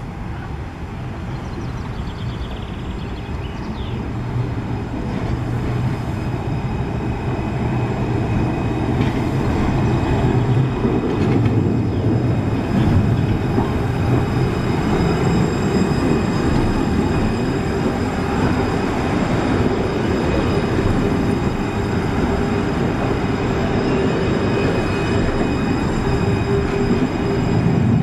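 Alstom Citadis low-floor electric tram running past: a rumble of wheels on rail that grows louder over the first ten seconds and then holds. Several faint steady high whines sit over the rumble.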